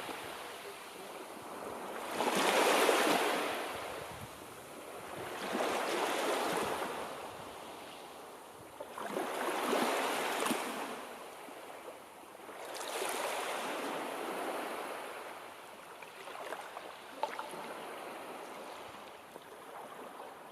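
Sea surf: waves breaking and washing in, in about five slow surges that swell and fade every three to four seconds, with a few small sharp ticks near the end.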